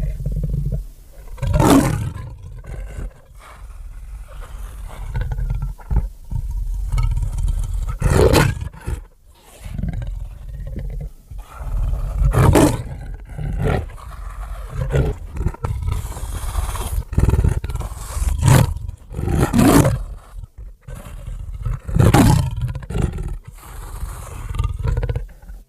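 Jersey Devil monster sound effect: a string of loud roars and screeches, about six sharp peaks over a low rumbling undertone, cutting off suddenly near the end.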